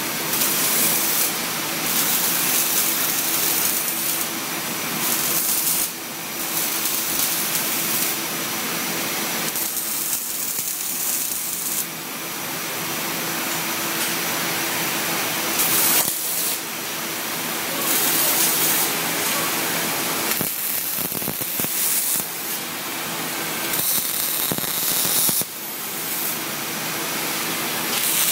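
MIG welder arc crackling and sizzling steadily on 16-gauge steel, the buzzing spatter of short-circuit transfer, with a few brief dips in level.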